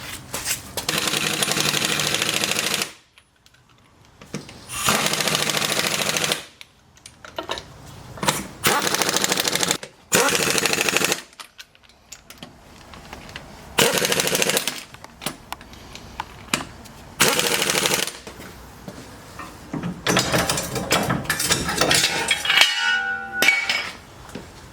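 Pneumatic impact wrench hammering in repeated bursts of one to two seconds, likely running wheel lug nuts onto the Jeep's axle after the rear suspension work. A short whine near the end.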